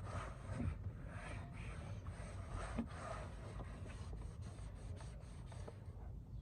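Cloth rubbing and wiping the car's interior surfaces in irregular strokes, with a few small knocks and clicks of handling.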